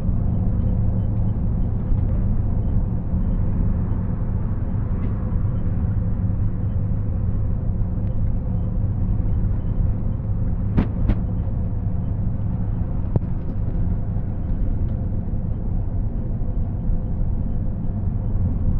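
Intercity bus's diesel engine running steadily at highway speed, heard from inside the driver's cab as a constant low drone with road noise. Two sharp clicks come close together about eleven seconds in.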